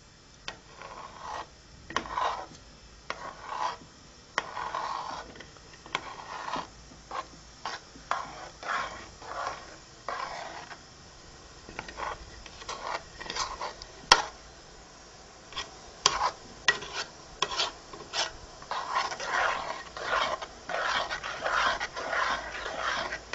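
A spoon stirring a thick barley-flour and milk mixture (talbina) in a metal pot, scraping round the bottom and sides in a steady run of strokes. There are occasional sharp clinks of the spoon against the pot, the loudest a little past the middle.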